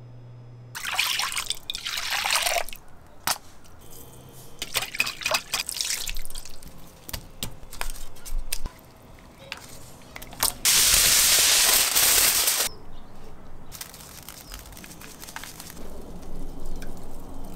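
Liquid being poured and splashing, in several separate pours, with the loudest and longest steady pour about ten seconds in.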